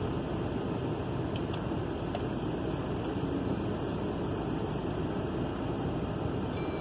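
Steady low rumble of a car running, heard from inside the cabin, with a few faint clicks in the first couple of seconds.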